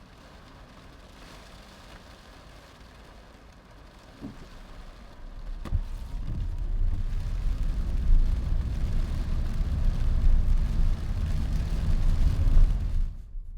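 A faint steady hiss, then a loud low rumble building about five seconds in and cutting off just before the end.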